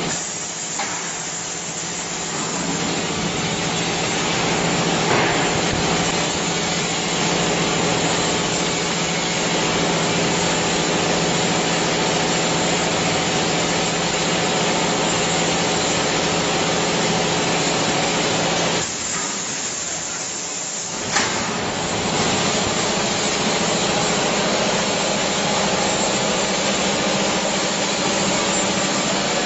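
Factory production-line machinery running: a steady loud hiss with a low hum under it. The noise drops for a couple of seconds about nineteen seconds in and comes back with a sharp click.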